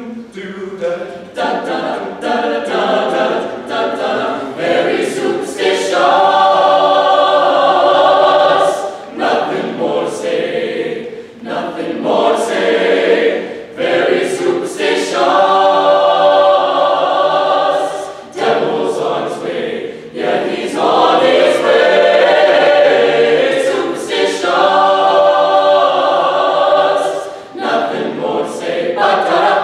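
A choir singing a cappella, in phrases with several long held chords and short breaths between them.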